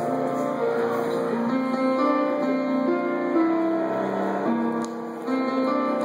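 Grand piano played solo: a melody over held chords, the notes changing steadily, with a brief softer moment about five seconds in.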